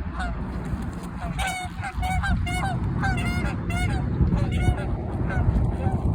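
Canada geese honking repeatedly, about two honks a second, in a territorial dispute. A steady low rumble runs underneath.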